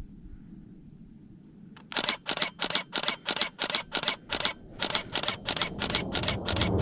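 Camera shutter firing in a rapid burst, about five sharp clicks a second, starting about two seconds in. Near the end, the low rumble of an approaching Thunderbirds F-16 jet begins to build under the clicks.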